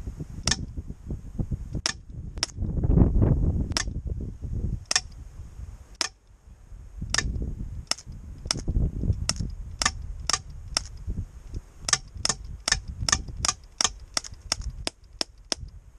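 A BB gun fired shot after shot as fast as it can be worked, some thirty sharp cracks: spaced a second or so apart at first, then quickening to about three a second in the last few seconds, over a low, uneven rumble.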